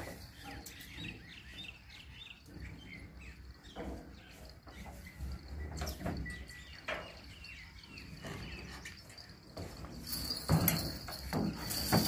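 Small birds chirping against outdoor ambience, with a few scattered knocks. A steady, high-pitched insect trill comes in near the end.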